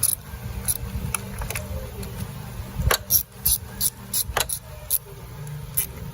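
A dozen or so sharp metallic clicks and clinks, coming in an irregular run and thickest past the middle, from a 10 mm socket wrench and metal parts at the car battery's terminals, over a steady low rumble.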